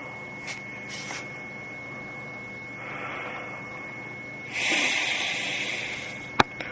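A drawing tool scratching across paper: two short light strokes, then a louder, rasping stroke about a second and a half long past the middle, and one sharp click near the end. All of it sits over a steady faint hiss with a thin high whine.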